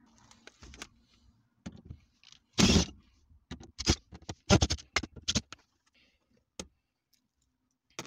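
Cordless drill-driver working the bolts of a gear-shifter boot surround: a short burst of the tool about two and a half seconds in, then a run of sharp metallic clicks and rattles, with one last click near the end.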